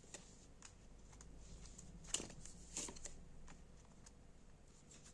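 Tarot cards being handled and laid out on a table: faint papery rustles and slides, with two slightly louder ones a little over two seconds in.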